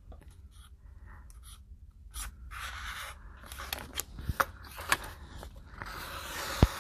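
Sharpie marker scratching across paper on a clipboard as lines are drawn, the strokes growing denser in the second half, with a few sharp clicks.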